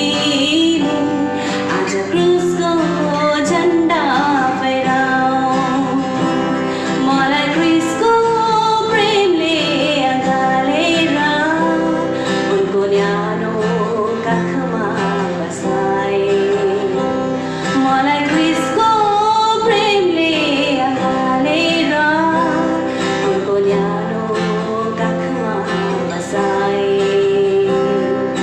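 A woman singing a worship song to acoustic guitar accompaniment.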